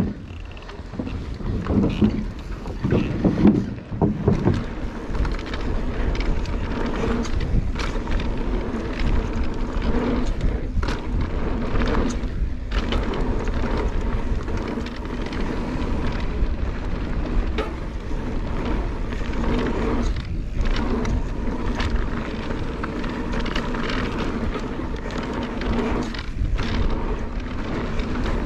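Wind buffeting the action-camera microphone while an Orbea Rise electric mountain bike rolls fast down a dry dirt trail, tyres rumbling on the ground. Short knocks and rattles from the bike over bumps come throughout.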